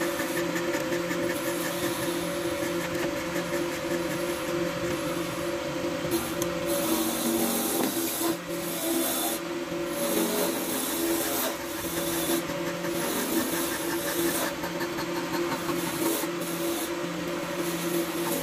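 Corded handheld electric power tool running with a steady hum while it works against the wooden vase, cutting and rubbing the wood.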